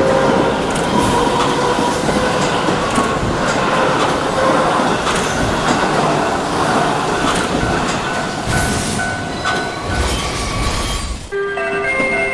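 Long train passing: a steady rumble with the clickety-clack of wheels over rail joints, often in pairs. It cuts off suddenly about 11 seconds in, and pitched music tones take over.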